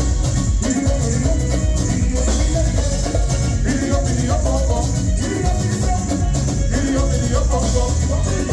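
Live band playing a song at full volume, with a steady beat of drums and percussion over a strong bass line.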